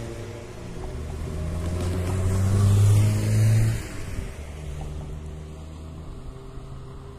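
A car drives past close by. Its engine and road noise build to a peak about three seconds in, then fall away suddenly, leaving a lower, steady traffic hum.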